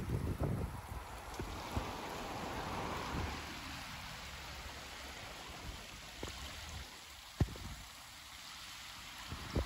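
Fast-flowing floodwater from an overflowing creek rushing past in a steady hiss, with wind buffeting the microphone in the first second and a single sharp click about seven seconds in.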